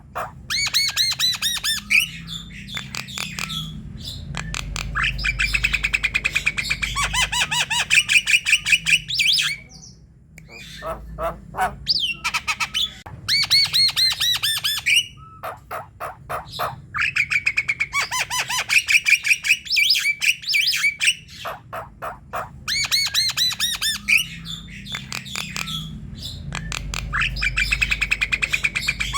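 Javan myna chattering: rapid runs of harsh, repeated notes, broken by short pauses.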